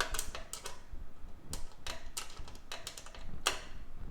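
Irregular light clicks and taps of hardware being handled in a PC case, as the graphics card is fixed in place with case screws. About ten sharp clicks come at uneven spacing, one louder and ringing about three and a half seconds in.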